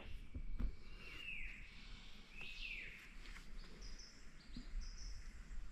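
Birds calling in rainforest canopy: two whistled notes that slide downward in pitch, then a few short, higher notes.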